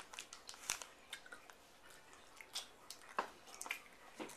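A toddler chewing a hard candy: faint, irregular crunching and mouth clicks.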